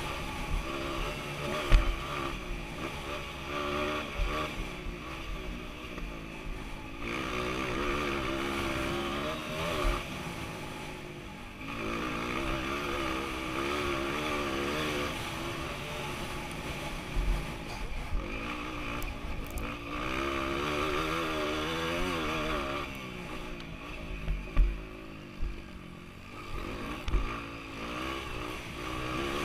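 Honda CRF230's single-cylinder four-stroke engine ridden hard, revving up and down over and over as the throttle is opened and chopped through the gears. A few sharp thumps break in, the loudest about two seconds in and again near the end.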